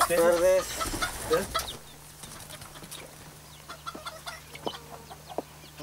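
Chickens clucking, loudest in the first second or so. After that the sound drops to a quieter background of a low steady hum and scattered short ticks.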